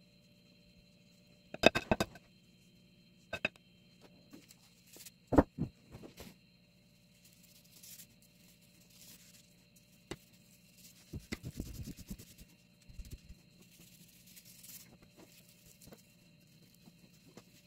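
Scattered taps, knocks and scrapes from gloved hands and a metal knife working a layered cream cake on a glass stand, two sharp knocks standing out and a cluster of smaller clicks later, over a faint steady hum.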